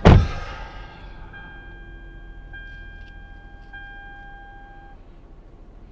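A sharp thump right at the start, like a car door shutting, then a faint, steady, chime-like tone with overtones that rings on for about five seconds before stopping.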